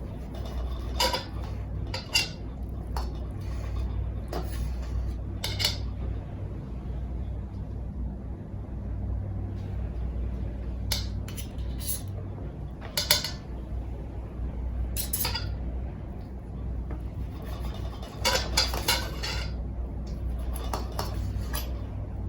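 Metal utensils clinking and scraping against metal cookware: a dozen or so separate clinks, several in quick succession near the end, over a steady low hum.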